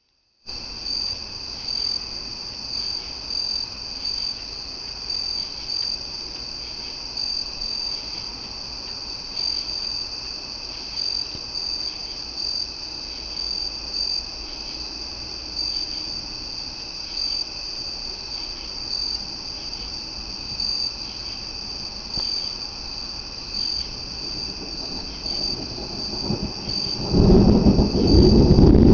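Crickets chirping loudly in a steady, regular pulsing chorus. About 27 seconds in, a low rumble of thunder swells up and becomes the loudest sound.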